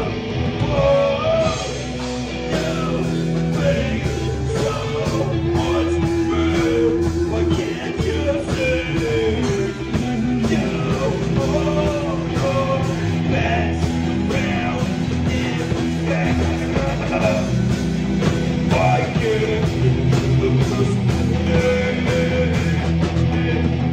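Band jamming rock music: electric guitar lines over bass and drums with a steady beat.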